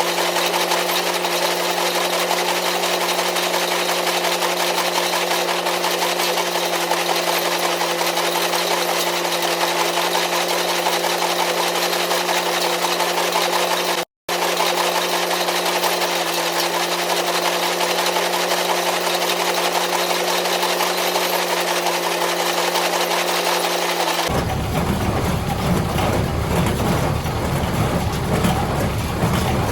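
Tractor engine and Welger AP51 square baler running steadily, with an even hum. The sound drops out for an instant about halfway. For the last five seconds it changes to a fuller, rougher engine noise.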